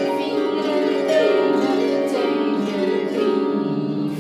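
Lever harp played in quick runs of plucked notes that climb and fall again and again, the strings ringing on under each other.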